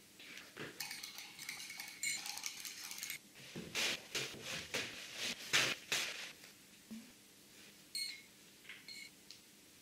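Small hard objects handled and clinking against each other, with a run of scraping or brushing strokes mid-way and two short ringing clinks near the end.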